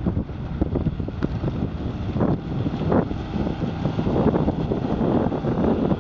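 Gusty wind buffeting the microphone, with the outboard motor of a small cabin boat running at speed faintly beneath it.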